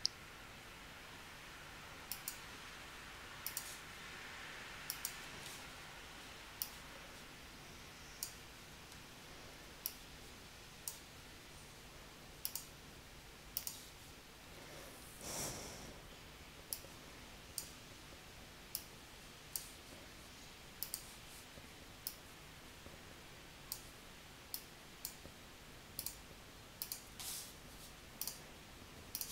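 Computer mouse clicking: short, sharp single clicks about once a second, some in quick pairs, as points of a line are placed in a drawing program. A brief soft rush of noise comes about halfway through.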